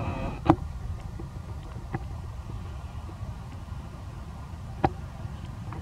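Steady low outdoor rumble with a few sharp clicks, one about half a second in and another near five seconds.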